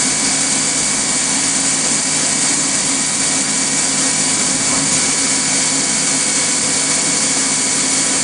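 Fadal CNC mill engraving with a Big Kaiser spindle speed multiplier, its 3,000 RPM spindle speed stepped up to 15,000 RPM at the cutter. The machine gives a steady, even high whine and hiss with a few constant tones running through it.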